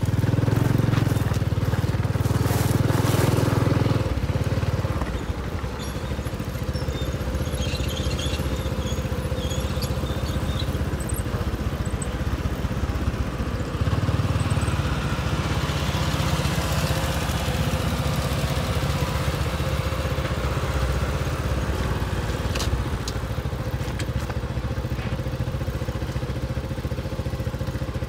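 Wind buffeting the microphone and bicycle tyres crunching over a gravel dirt track while riding, loudest in the first four seconds.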